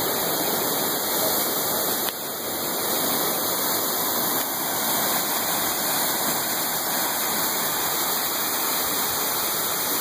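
Waterfall pouring into a rock pool: a steady rush of falling water, dipping slightly in level about two seconds in.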